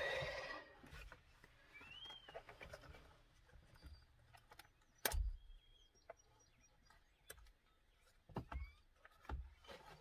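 Quiet, scattered clicks and knocks from handling the steering wheel's airbag module and its connectors, the sharpest knock about five seconds in. A few faint bird chirps sound in the background.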